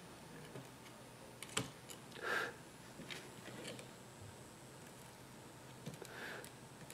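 Faint scattered ticks and clicks from a soldering iron pressing flux-soaked desoldering braid onto the pads of a surface-mount IC, the flux crackling as the braid wicks up the solder. Two short soft puffs, about two seconds in and near the end.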